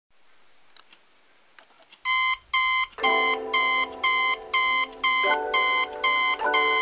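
Alarm clock beeping, short high-pitched beeps about twice a second, starting about two seconds in. From about three seconds in, low held notes that shift every second or so sound beneath the beeps.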